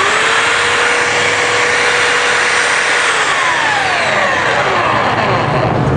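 Stanley SB90 900 W belt sander running free at its top speed setting (speed 6), a steady motor whine over the whir of the belt. About halfway through, its pitch begins to fall gradually.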